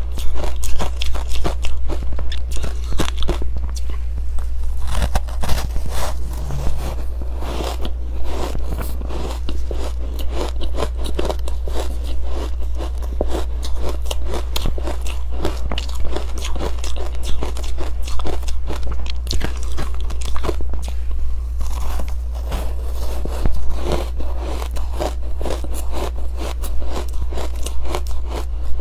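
Close-miked biting and chewing of soft, powdery freezer-frost ice coated in matcha powder: a continuous run of crunches with no pauses.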